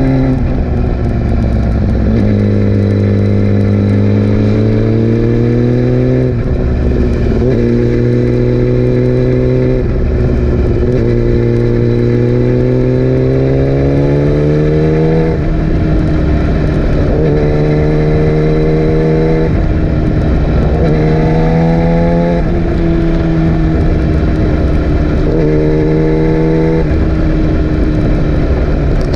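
Yamaha R6 inline-four engine running under way, its pitch climbing and then dropping back several times as it pulls and changes gear.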